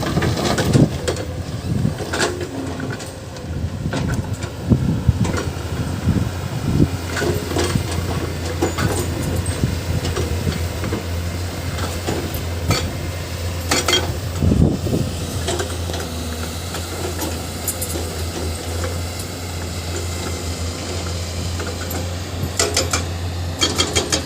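Excavator's diesel engine running steadily under load, with scattered metallic clanks and knocks of the bucket and rock. The loudest knock comes a little past halfway.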